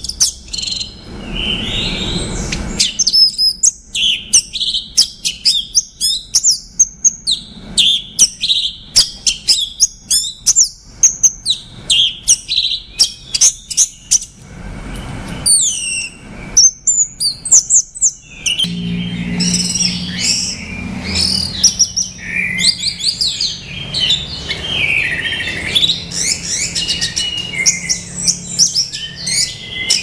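Orange-headed thrush singing, a run of varied whistled phrases with many sharp clicks between them. About two-thirds of the way in the song turns denser and more continuous, over a low hum.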